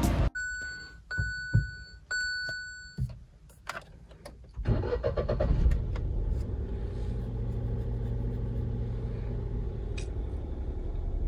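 A few short electronic car beeps and clunks, then a car engine starts about four and a half seconds in and settles into a steady idle.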